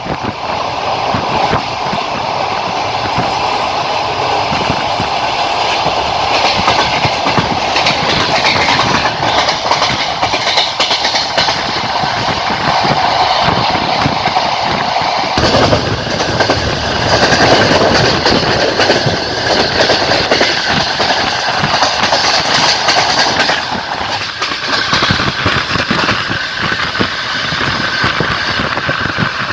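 Passenger train carriage running along the track, its wheels clacking steadily over the rail joints under a continuous rolling rumble. About halfway through, the noise turns deeper and fuller for several seconds.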